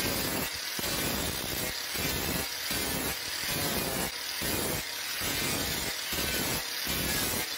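Angle grinder with an orange sanding disc running against a wooden handle block held in a vise, a steady abrasive grinding that dips briefly about every three-quarters of a second as the disc is worked back and forth across the wood.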